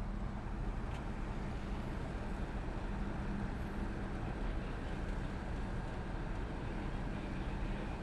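Tugboat's diesel engine running steadily under load while it pulls on a taut towline: a continuous low drone with a steady hum.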